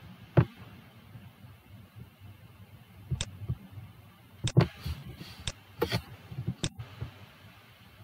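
Computer mouse button clicks: about six sharp single clicks, spaced irregularly over several seconds, against a faint hiss.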